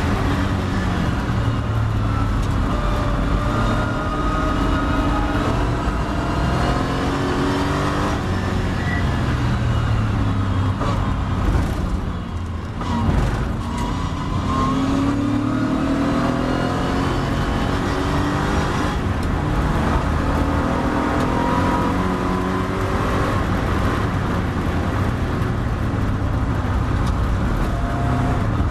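Triumph TR7 race car's engine heard from inside the cabin at racing speed, its note rising and falling with the throttle and gear changes. About twelve seconds in it drops briefly as the car brakes hard for a corner, then climbs again as it accelerates out.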